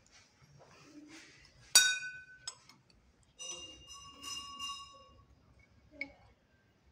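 A brass temple bell struck once, a bright clang that rings on for about half a second. It is then rung again about four times in quick succession, the notes overlapping, and a small click follows near the end.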